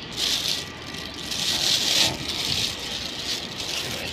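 Thin plastic bag crinkling and rustling as it is handled, in three bursts, the loudest about two seconds in.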